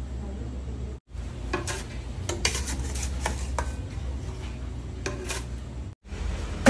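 Crushed ice scooped from a bin with a plastic scoop and dropped into a plastic blender jar: a run of sharp clinks and rattles over a low steady hum.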